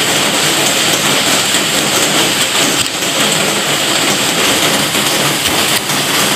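Heavy rain falling steadily, a dense even hiss, with a few faint taps of a knife cutting calamansi on a bamboo cutting board.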